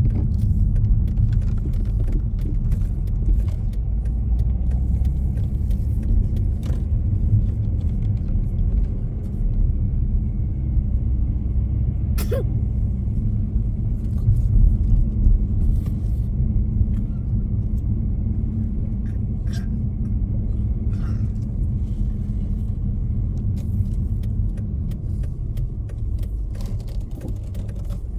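Steady low rumble of a moving road vehicle, with scattered faint clicks and ticks over it.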